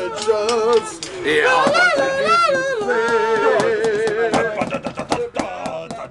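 Band members singing a vocal warm-up of a metal song without accompaniment: long held notes with a wide, wavering vibrato, fading out about four and a half seconds in. Light clicks run beneath the singing.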